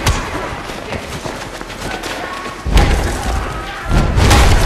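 Fight-scene impact sound effects: heavy thuds of blows landing, with a loud one just under three seconds in and another about four seconds in.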